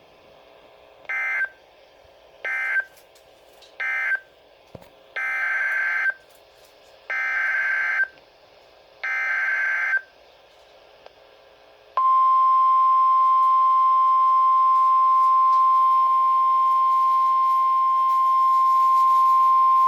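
NOAA Weather Radio alert signalling: three short SAME digital data bursts close out the previous warning, then three longer data bursts open the next flood warning. About two seconds later the steady single-pitch 1050 Hz warning alarm tone starts and holds.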